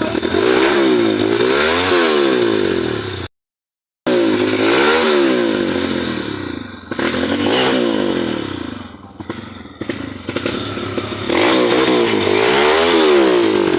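Trail motorcycle engine revving up and down again and again, with rattling and clatter. The sound cuts out completely for under a second about three seconds in.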